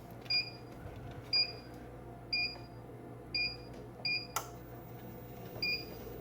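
Treadmill console beeping six times in short single beeps over the steady low hum of the BH T8's Turdan DC drive motor, running at low speed with bad bearings. A sharp click sounds about four seconds in.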